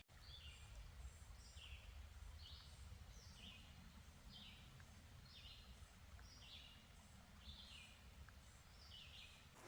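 Faint bird calling over and over, a high note stepping down in pitch, repeated about once a second, over a low background rumble.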